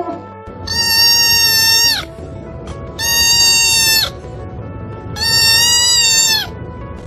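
Tabby kitten giving three long, loud, high-pitched cries, about a second apart, each held at an even pitch and dropping slightly at the end.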